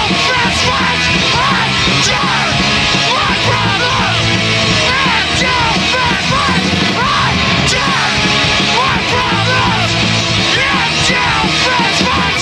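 Loud rock band playing live in a small room: drum kit with snare, toms and crashing cymbals driving a fast beat under distorted electric guitar and bass, with shouted vocals over the top.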